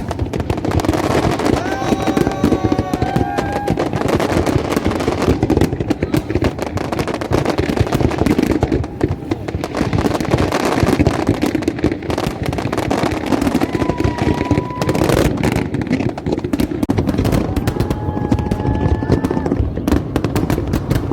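Fireworks display, dense rapid crackling and popping that runs on without a break, over the chatter of a large crowd. A few short, held pitched calls rise above the crowd now and then.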